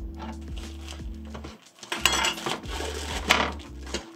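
Adhesive magnetic sheet and foam insulation being peeled and ripped off an old 3D printer heated bed: rasping tears, the loudest about two seconds in and again just after three seconds, over background music.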